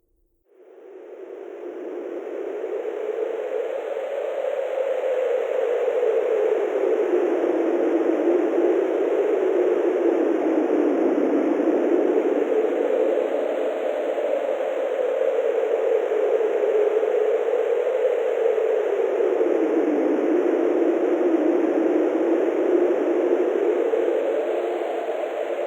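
Wind sound effect: the wind fades in about half a second in and swells over the next few seconds, then blows steadily, its pitch slowly rising and falling.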